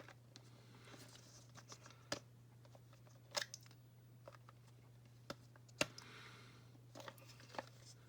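Small plastic doll-furniture parts being handled and fitted together: scattered faint clicks and taps, with a few sharper clicks, over a steady low hum.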